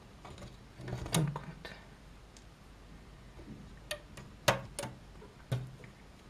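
Rubber loom bands being stretched and snapped onto the plastic pegs of a Rainbow Loom: a handful of short, sharp clicks and ticks, spaced irregularly.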